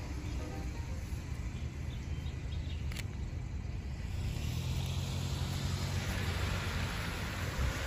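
A car passing on a wet street, its tyre hiss on the wet road building over the last few seconds over a steady low rumble. A single sharp click sounds about three seconds in.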